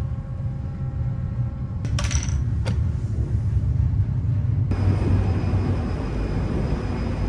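Steady low rumble of the ferry Salvia Maru's engines, with a metal locker door clicking and rattling open about two seconds in. A little after halfway the sound switches abruptly to a louder rushing noise of the open deck, with the ship's rumble still underneath.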